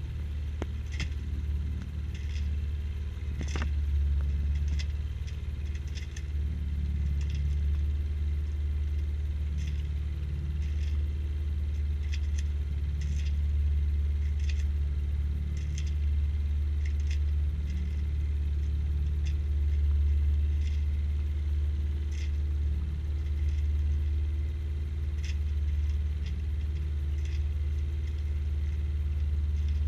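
A sailboat's auxiliary motor running steadily as a low rumble, with light irregular ticks and clinks about once a second over it.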